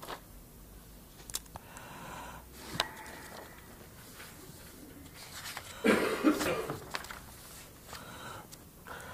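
Sheets of paper being handled and turned close to a handheld microphone, with a few light clicks, and a brief loud burst about six seconds in.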